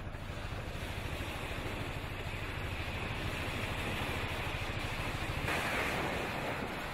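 Boat engine running with a steady low throb, under wind and water noise. About five and a half seconds in, a louder, wider hiss takes over.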